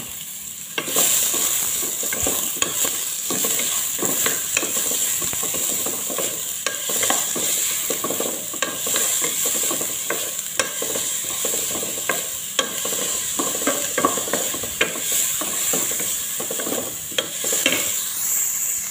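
Diced white onions sizzling in hot oil in a cooking pot, while a wooden spoon stirs them, scraping and knocking against the pot again and again. The stirring and sizzle pick up about a second in.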